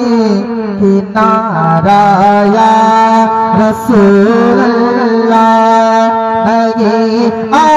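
A man singing a devotional Urdu naat into a microphone, holding long notes that waver and bend, with short breaks between phrases.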